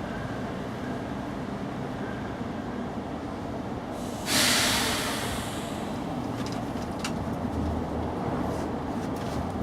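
Steady low rumble of background noise, with a sudden loud hiss about four seconds in that fades away over a second and a half, followed by a few faint clicks.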